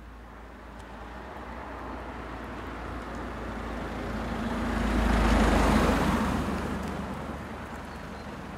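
A car passing on the road: its engine and tyre noise builds, is loudest a little past halfway, then fades away.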